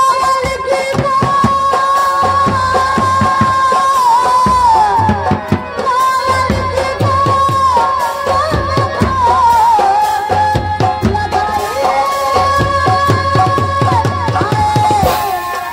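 A woman singing a ghazal through a stage PA system, with hand-drum accompaniment.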